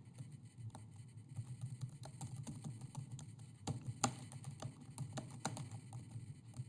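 Typing on a computer keyboard: a run of irregular key clicks as a short sentence is typed, sparse at first and quicker after about two seconds.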